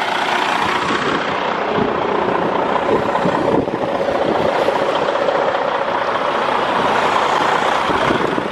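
Detroit DD15 diesel engine of a Freightliner Cascadia semi truck idling steadily.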